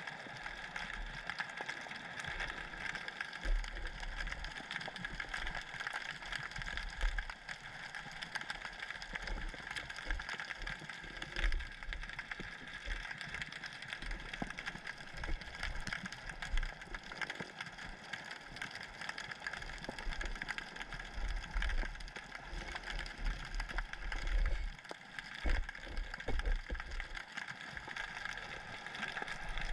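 Underwater ambience picked up by a camera in a waterproof housing hanging in the current. There is a steady hiss with a constant mid-pitched drone, scattered fine clicks, and irregular low thumps as the housing is jostled.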